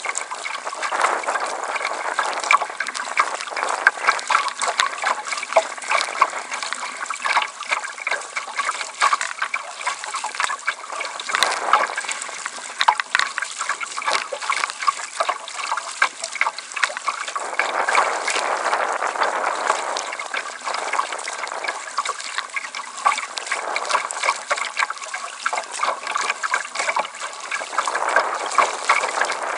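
River water splashing and gurgling against the bow of a wooden kayak as it is paddled across choppy water: a dense, steady patter of small splashes that swells louder at times.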